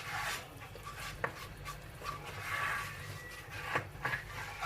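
A spoon stirring and scraping flour being toasted in melted butter in a pan, with a few sharp knocks against the pan, about a second in and twice near the end.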